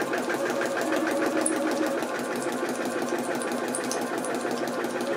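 Janome DKS100 sewing machine running at a steady speed, stitching a straight seam through a sheet of paper, its needle going up and down in a fast, even rhythm.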